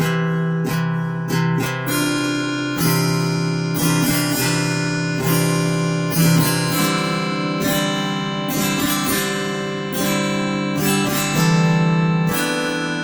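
Acoustic guitar music, chords plucked and strummed in a steady run of notes.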